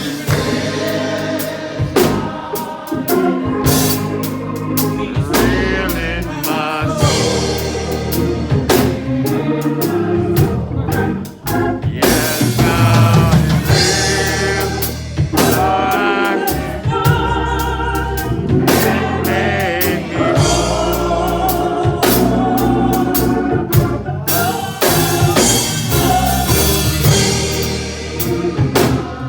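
Live gospel music: a choir or congregation singing, backed by a drum kit and an organ.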